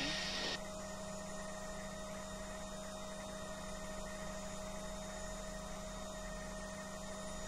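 Steady hum with a constant tone in the cockpit of a Bell 505 helicopter running on the ground. A radio transmission cuts off right at the start.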